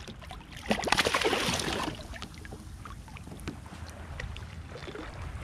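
Water splashing at a kayak's side as a hooked tautog thrashes at the surface: a loud burst of splashing about a second in that lasts about a second, then lighter lapping and small drips.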